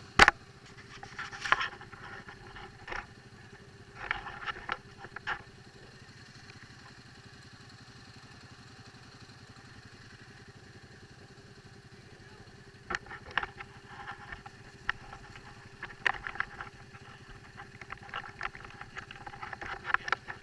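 ATV engine idling steadily, with scattered bursts of sharp clattering knocks over it; the loudest knock comes at the very start.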